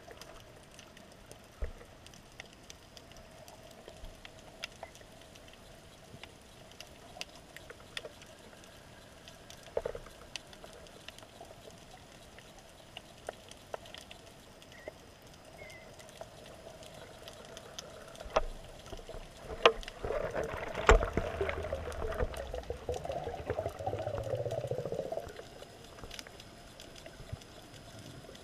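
Underwater ambience during a freedive: scattered sharp clicks and crackles over a faint steady hum. A louder stretch of rushing noise with a low rising drone comes about twenty seconds in.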